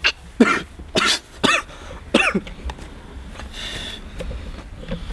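A man coughing, a fit of about six coughs in quick succession over the first two and a half seconds.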